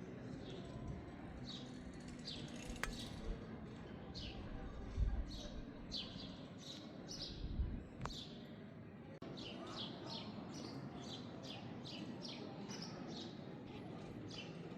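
Small birds chirping busily: many short, falling chirps, several a second, over a steady low street hum. A couple of low thuds stand out about five and seven and a half seconds in.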